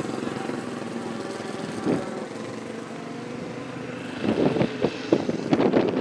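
A motorcycle engine running steadily, with louder, irregular crackling bursts from about four seconds in.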